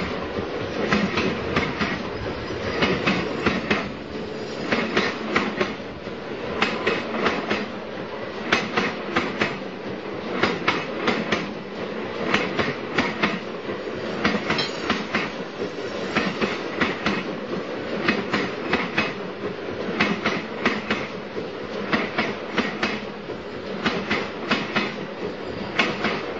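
Train running along the track: wheels clicking over the rail joints in quick groups every second or two, over a steady rolling rumble.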